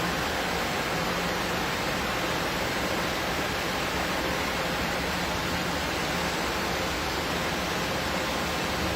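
Automatic car wash machinery running: a steady rushing noise of water spray or drying air, with a faint low hum under it.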